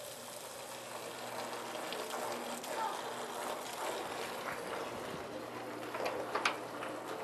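Water streaming out of an opening in a tank and running down into a catch trough: a steady, quiet hiss of running water.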